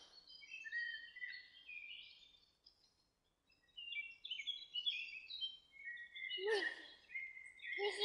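Wild songbirds singing: a quick run of short whistled notes at varied pitches, pausing briefly about three seconds in, then going on. A brief voice sounds once, about six and a half seconds in.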